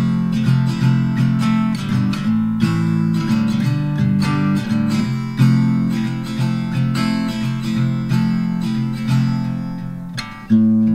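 Background music: acoustic guitar strummed and picked in a steady rhythm, with a brief drop in level and a fresh strum near the end.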